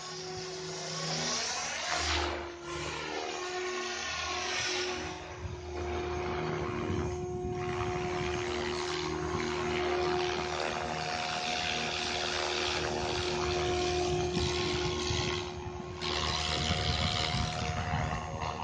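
SAB Goblin 500 electric RC helicopter in flight: the whine of its Quantum 4120 brushless motor and rotor blades. The pitch swoops up and down in the first few seconds, then holds steady as it hovers, and it gets louder near the end as it comes close.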